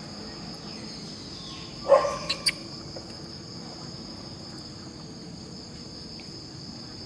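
Steady high-pitched drone of insects. About two seconds in, a short loud sound with a falling pitch, then two sharp clicks.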